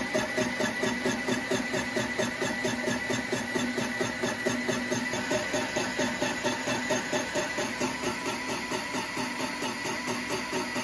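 Line boring machine's boring bar turning in a steel excavator bracket's pin hole, a neutral single-point tool taking a deep cut. The drive hums steadily under a regular cutting pulse about three times a second.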